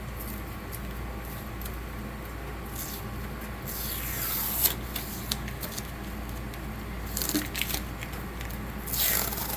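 Heavy, duct-like shipping tape being peeled off a printer's housing: a few short tearing pulls, the longest about four seconds in, another near seven seconds and one at the end, with light clicks of handling between them.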